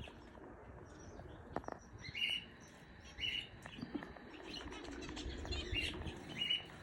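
Canaries giving short, high chirps every second or so, with the flutter of wings.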